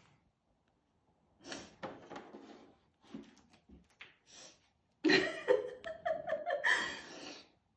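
A woman crying: shaky breaths and sniffs, then louder sobbing with a wavering, whimpering voice over the last few seconds.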